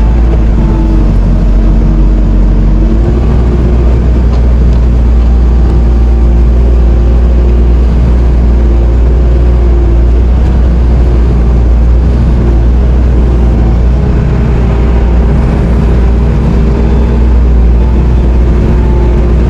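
Diesel engine of a Bobcat T770 compact track loader running steadily and loud while backfilling, its low hum growing stronger about three seconds in.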